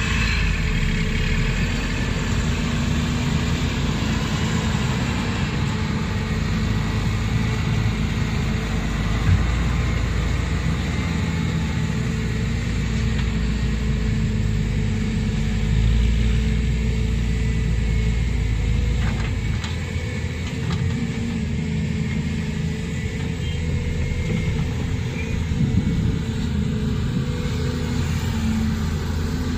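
Heavy diesel engines running steadily: a Volvo EC210 tracked excavator working while it loads a ten-wheel dump truck, with a swell in the low rumble midway as the loaded truck pulls away.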